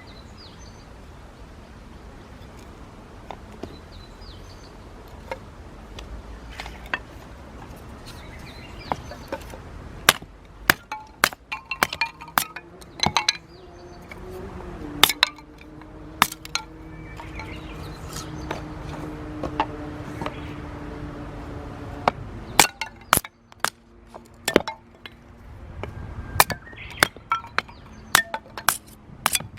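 Hinoki (Japanese cypress) firewood burning in a campfire, crackling with sharp pops and snaps. The pops are sparse at first and come thick and fast from about a third of the way in, over a low steady background.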